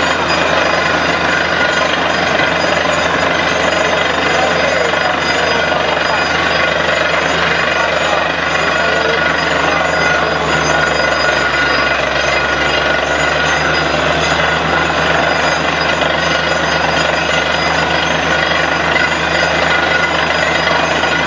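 Truck-mounted borewell drilling rig drilling with compressed air, a loud steady mechanical din of engine, compressor and drill as water and slurry are blown up out of the hole.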